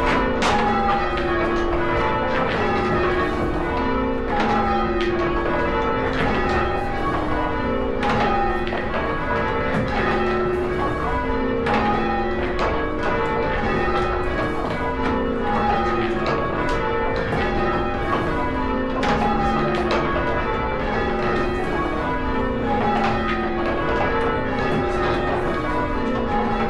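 A ring of six church bells rung full circle in English change-ringing style, the bells striking one after another in steadily repeating rows that step down in pitch from the treble to the tenor.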